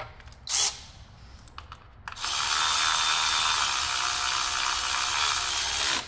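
A power tool runs steadily for about four seconds, starting about two seconds in. A short sharp click comes about half a second in.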